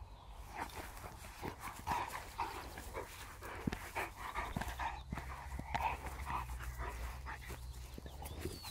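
A Labrador retriever panting in quick, uneven puffs, about three a second.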